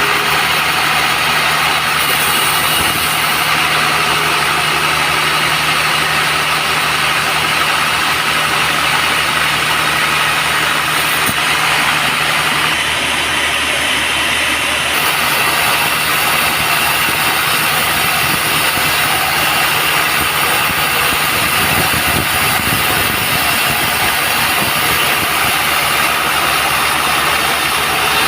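Band sawmill running with a steady machine drone that shifts briefly about halfway through.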